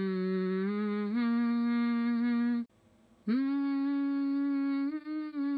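A voice humming a slow melody in long held notes that step upward in pitch, with a brief pause about three seconds in.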